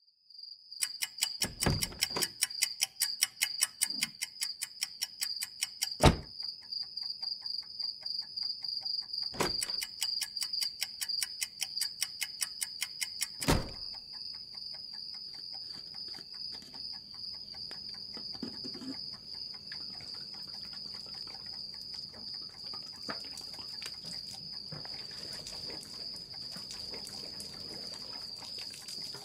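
Crickets trilling steadily in a grassy field. Over the first half a fast, even ticking runs with four deep booms a few seconds apart, and it cuts off suddenly about halfway.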